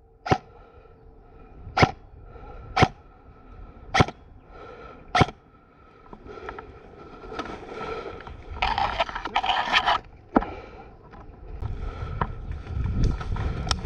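Airsoft gun firing single shots, five sharp cracks about a second apart, followed by scraping and rustling of movement through brush with one more shot near the end.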